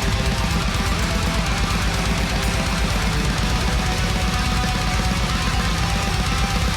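Blackened death metal with heavily distorted guitars and fast, dense drumming.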